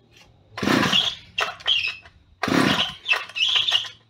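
Stihl 010 AV two-stroke chainsaw being pull-started: two pulls on the recoil starter, each just under a second long, the engine turning over without catching, which the owner puts down to having flooded it.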